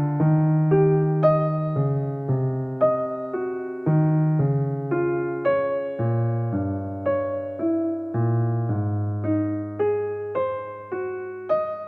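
Soft background music played on a piano-like keyboard: a slow line of single notes, each struck and fading, about two a second.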